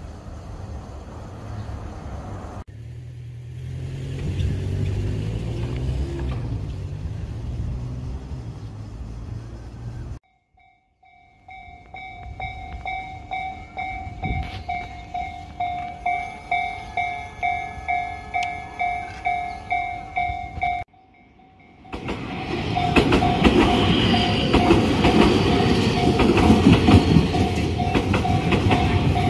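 Japanese level-crossing warning bell ringing in a steady repeated clang, about one and a half strikes a second. Near the end a train runs through the crossing with rumbling and clattering wheels while the bell keeps ringing. Before that there is a low rumble.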